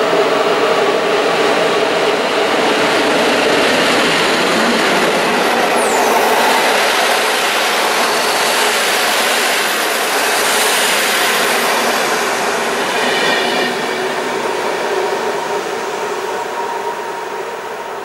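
EP07 electric locomotive and its InterCity passenger coaches passing at speed: a steady rolling rush of wheels on rail, with brief high wheel squeals. It fades slightly as the last coaches go by near the end.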